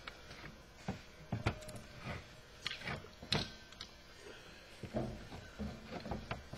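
Irregular clicks and light knocks of metal parts being handled as a plate with an elbow fitting is set into the opening of a racing fuel cell can, with a few soft thumps about five seconds in.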